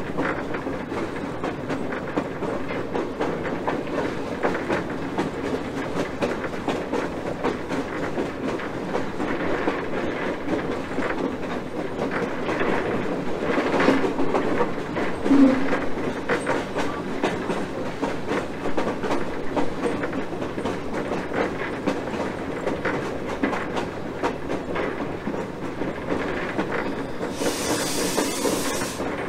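Wheels of the 1920 steam switcher Hocking Valley Scenic Railway no. 3 rolling over the rails, heard from the locomotive's pilot: a steady rumble with a clickety-clack of wheels over rail joints. A short loud hiss sounds near the end.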